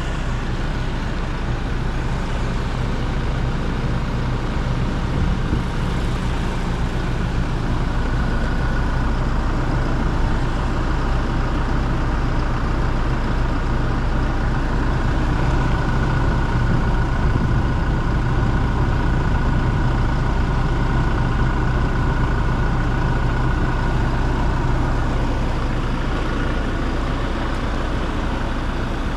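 Toyota Kijang Innova Reborn's 2.4-litre 2GD-FTV four-cylinder turbo diesel running steadily, a low even hum, with a faint thin whine that comes in about a third of the way through and fades near the end.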